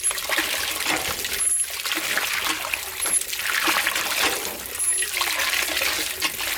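Water splashing and trickling, in repeated surges that break off briefly about every one and a half seconds.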